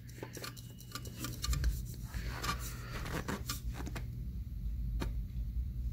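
Faint scattered clicks and rubbing as a hand twists a new oil filter onto a Mercury 2.1L four-stroke outboard, snugging it hand-tight, over a low steady hum.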